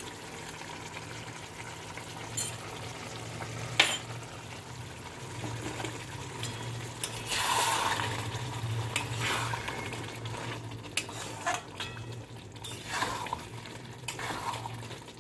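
Mutton kosha frying in a pan as a spatula stirs and scrapes it, with sizzling, a couple of sharp clinks against the pan in the first few seconds and repeated scraping strokes in the second half. A low steady hum runs underneath.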